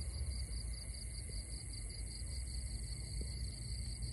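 Steady chorus of night insects, a continuous high-pitched trilling at several pitches at once, over a low rumble.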